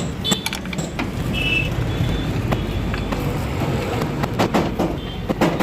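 Metal clinks and knocks of hand tools and engine parts being handled, over a steady low hum.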